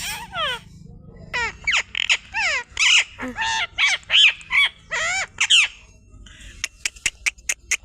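Ring-necked parrot vocalizing: a rapid run of short, pitched calls that fall in pitch, over about five seconds. It is followed near the end by a quick series of sharp clicks.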